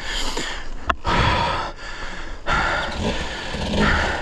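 Heavy, hard breathing of a winded person, a string of loud breaths roughly a second apart, with one sharp click about a second in.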